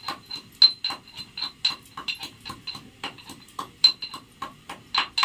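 Metal pestle pounding in a small metal mortar: quick, even clinks at about five a second, each ringing briefly.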